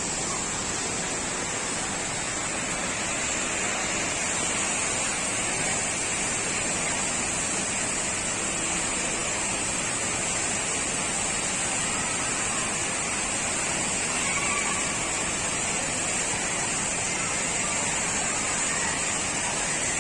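Steady rushing roar of the Rain Vortex, the indoor waterfall at Jewel Changi, pouring down into its pool without a break.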